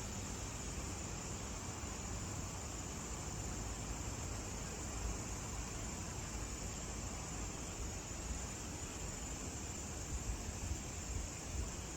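Steady outdoor ambience: a low rumble under an even hiss, with a constant high-pitched note on top and a few soft bumps near the end.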